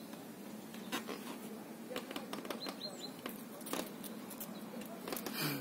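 Faint small-bird chirps, three short high falling notes about halfway through, among scattered light clicks and taps.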